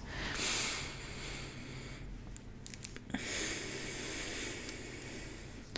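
A woman's slow, paced breath close to the microphone: a drawn-out inhale of about two seconds, a pause of about a second while she holds it, then a long slow exhale. This is an in-for-three, hold, out-for-three relaxation breath.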